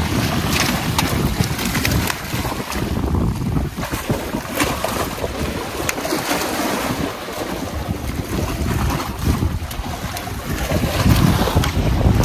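Wind buffeting the microphone over small waves splashing against a rock wall, a loud steady rush with a low rumble.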